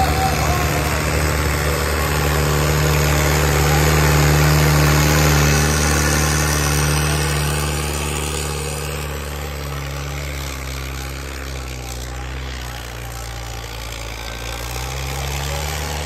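Modified 5911 tractor's diesel engine running hard under load through a tall open exhaust stack, a steady deep engine note. It is loudest a few seconds in, fades as the tractor moves off, and swells again near the end.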